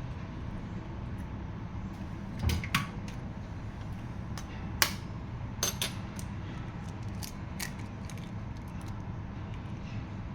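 A handful of sharp clinks and taps of hard kitchenware knocking together, the loudest about two and a half and five seconds in, over a steady low hum.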